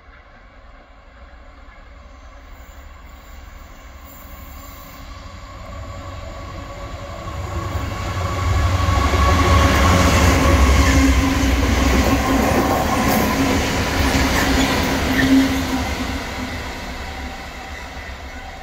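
A light-engine convoy of five diesel freight locomotives, four Class 66s and a Class 70 coupled together, passing. The engines' drone and the wheel rumble build as the convoy approaches, are loudest for several seconds as it goes by, and fade away near the end.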